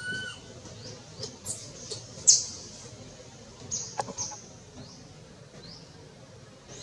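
Infant long-tailed macaque giving a run of short, high-pitched squeaks and cries while with its mother, the loudest about two seconds in.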